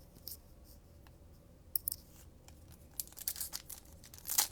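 A few light clicks of card handling, then from about three seconds in a quickening run of crackly tearing and crinkling as a trading card pack wrapper is torn open.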